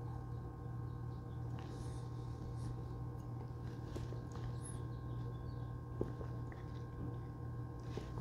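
Quiet room tone with a steady electrical hum, faint sipping and swallowing sounds from a mouthful of beer, and a small click about six seconds in.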